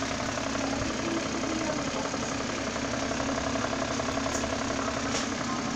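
Small electric fans running with a steady hum, among them a little fan zip-tied in place as a makeshift exhaust, blowing the grow light's hot air up and out in place of an inline fan.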